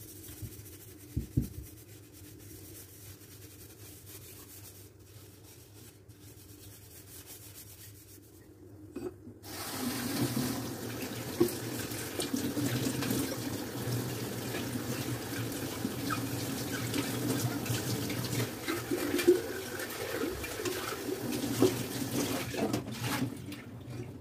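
Tap water running into a sink, turned on about ten seconds in and off near the end, with a few sharp clinks while it runs.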